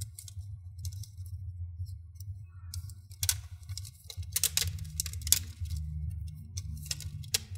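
Hands pressing and smoothing a thin protective cover sheet down onto a laptop keyboard's backplate: irregular crackling and clicking, starting about three seconds in, over a steady low hum.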